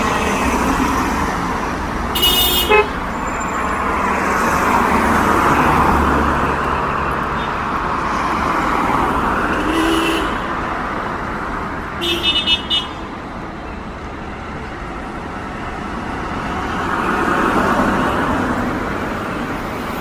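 Cars passing in steady road traffic, the noise swelling and fading as each goes by. Quick car-horn toots come about two seconds in, and another short burst of several toots about twelve seconds in.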